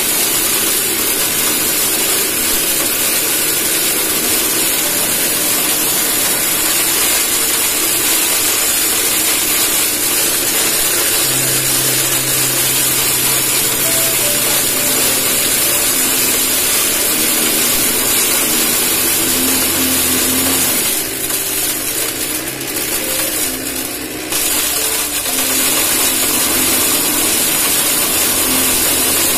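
Homemade electric corn cracker made from a biscuit tin, its motor running steadily while it grinds dried corn kernels into cracked feed. The sound dips for a few seconds about three-quarters of the way through.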